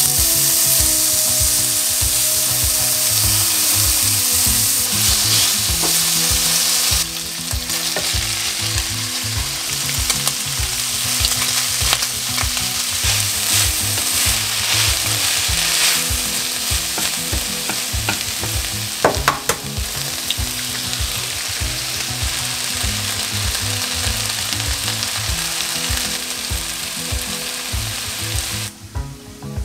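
Bacon, then shredded cabbage with bacon, sizzling as it is stir-fried in a nonstick frying pan, with a wooden spatula clicking and scraping against the pan. The sizzle steps down a little about seven seconds in and cuts off near the end.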